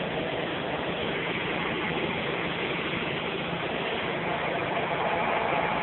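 Riding lawn tractor's engine running steadily under way.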